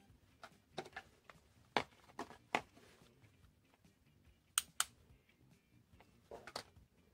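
Small plastic clicks and knocks from handling a soldering iron, its USB cable and a charger plug. A little past halfway come two sharp clicks in quick succession as a power-strip switch is pressed, switching the iron on to heat.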